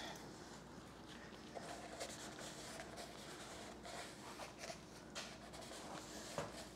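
Faint rubbing and scraping with a few light clicks and knocks from hands and a ratchet handled on a bare V8 engine block, over a faint steady hum.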